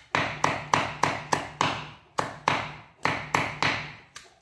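Cleaver chopping wood ear mushrooms on a round wooden chopping board: a steady run of sharp knocks, about three a second, with a couple of short pauses.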